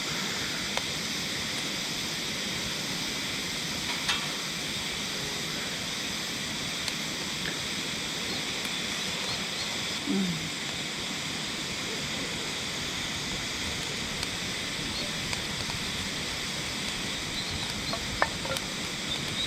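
Steady rushing of a clear mountain river, with a few sharp clicks.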